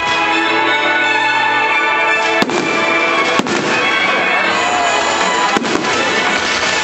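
Fireworks display, with four sharp bangs from about two and a half seconds in, two of them close together near the end. Under them runs music with long held notes.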